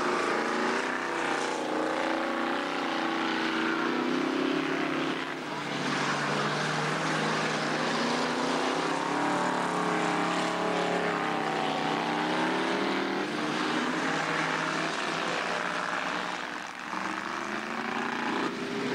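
Several dirt-track speedway cars' engines racing around the oval, their pitch rising and falling as the drivers accelerate and lift off through the corners.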